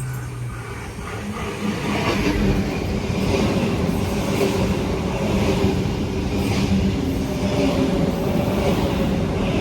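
Electric suburban passenger train coming into the station: a rumble and motor hum grow louder about two seconds in and then hold steady, with faint clacks of the wheels over the rails.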